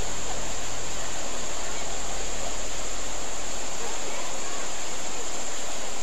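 Steady rushing of a fast-flowing stream fed by a waterfall, running very strong and forceful after heavy rains. A steady high-pitched whine runs above it.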